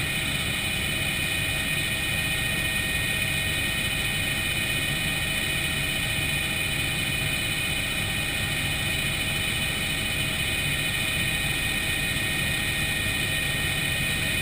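Helicopter in flight heard from inside the cockpit: a steady drone of engine and rotor with a steady high whine over it, unchanging throughout.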